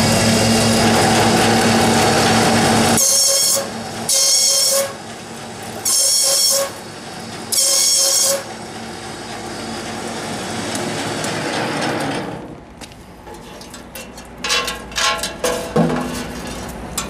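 Bamboo stick-making machine running with a steady motor hum, then four loud, high-pitched bursts of under a second each as bamboo strips are fed through its slicing rollers and cut into sticks. Near the end, a quick series of sharp clattering knocks.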